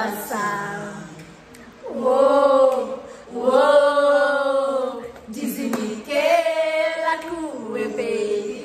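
Singing: a few long, held sung phrases with the pitch bending, and no clear accompaniment.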